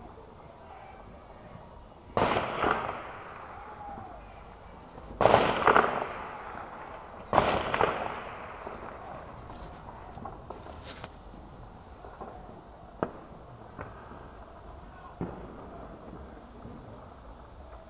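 Firecrackers going off: three rapid crackling volleys a few seconds apart, each lasting about a second with an echoing tail, followed by a few scattered single bangs.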